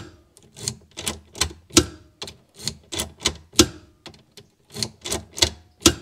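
Rapid, uneven series of sharp mechanical clicks, about three or four a second, from hand work on the Mercedes W126's steering lock and ignition assembly.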